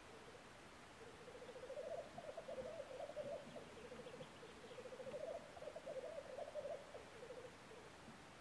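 Male black grouse rookooing: a low, bubbling cooing song of rapid pulses that rises and falls in waves, starting about a second in and dying away near the end. This is the male's spring lek display song.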